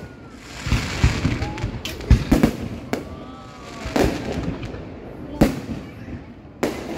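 Fireworks display: aerial shells bursting in about seven sharp bangs spread over the seven seconds, some in quick pairs, with crackling and hissing between them.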